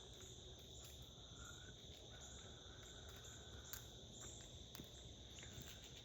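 Faint, steady high-pitched chirring of insects, with a few faint clicks.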